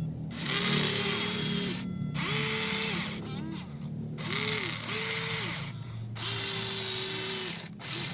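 Huina 1593 RC excavator's small electric motors and gearboxes whirring in about seven short stop-start bursts, each spinning up, holding and winding down; the longest burst is near the end.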